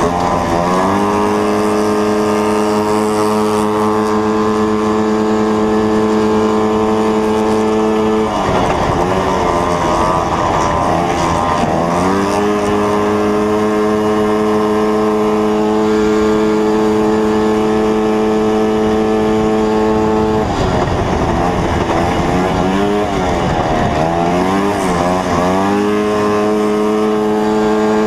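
Racing snowmobile engine run hard around an ice oval, heard from on board. It holds a steady high pitch down the straights. The revs drop and waver through two corners, about eight seconds in and again from about twenty to twenty-six seconds.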